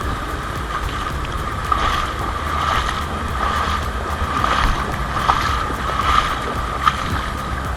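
Steady rush of a mountain creek running over rocks, with a few faint ticks and splashes.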